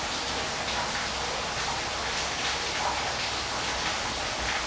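Steady rushing water of a waterfall: an even hiss that doesn't let up.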